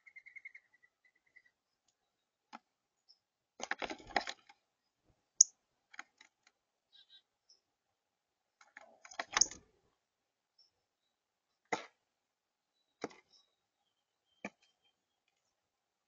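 Birds moving about a seed-covered platform feeder: scattered sharp clicks and taps on the tray, with two louder rustling scuffles about four and nine seconds in. A short, fast bird trill sounds at the very start.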